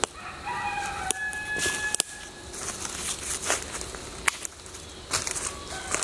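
A rooster crowing: one long call of about two seconds at the start, and another beginning near the end. In between, footsteps in dry leaf litter with a few sharp snaps.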